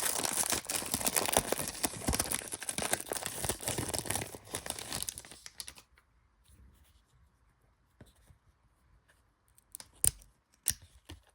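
A trading card pack wrapper is torn open and crinkled for about six seconds. Then there are a few faint clicks near the end.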